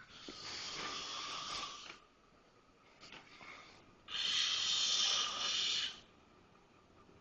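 A man snoring loudly in his sleep: a long snore, a short faint one, then a louder long snore, each long one lasting about two seconds, with quiet pauses between. The snoring sounds as if he can't breathe, which the listener fears cannot be healthy.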